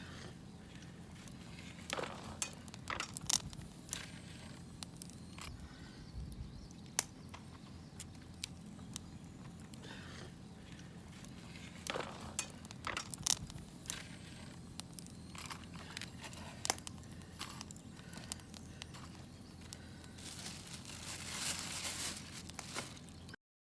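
Wood fire crackling quietly, with scattered sharp pops and clicks at irregular intervals.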